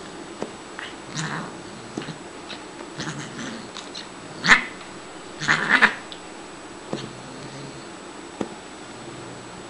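Siamese cat vocalizing in short bursts while play-fighting, the loudest calls about four and a half and five and a half seconds in.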